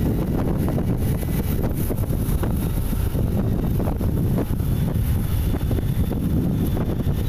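Wind buffeting the microphone of a camera carried in a moving vehicle, a steady low rumble with road noise.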